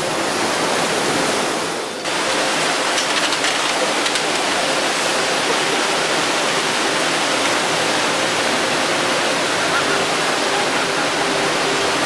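Waterfall rushing: a steady, loud wash of falling water, with a brief dip about two seconds in.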